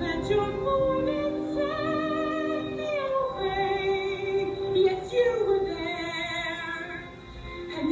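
A woman singing, holding long notes with a wavering vibrato, over a steady instrumental accompaniment.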